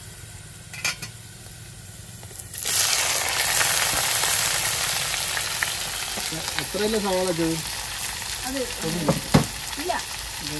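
Sliced onions dropped into a large metal cooking pot start frying with a sudden loud sizzle about two and a half seconds in, and the sizzle carries on steadily. Before that there are only a few faint metal clinks.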